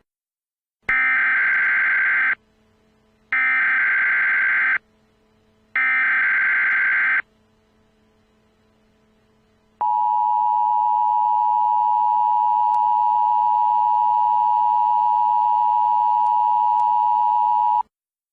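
Emergency Alert System tones announcing a tornado warning: three bursts of SAME header data, each about a second and a half long with about a second between them, then the steady two-tone attention signal held for about eight seconds.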